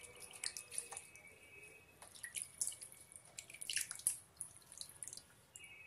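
Hands rinsing and rubbing in a shallow plastic tub of water, with small irregular splashes and drips.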